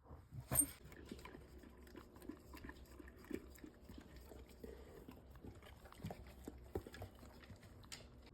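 A dog's mouth noises: a run of irregular small wet clicks, the sharpest about half a second in, over a faint steady low hum.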